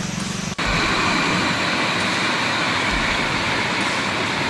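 Loud, steady rushing of floodwater. It cuts in suddenly about half a second in, replacing a lower hum.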